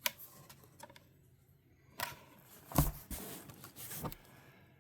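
Light clicks and rustles of 3D-printed plastic parts being picked up and handled, a sharp click at the start and a few short knocks and rustles after about two seconds in.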